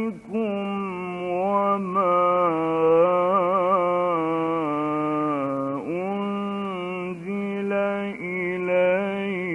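A male Quran reciter chants in a slow, melodic style, drawing single syllables out into long held notes with a quavering ornament in the middle, on an old narrow-band recording. He takes a short break about six seconds in and then starts the next phrase.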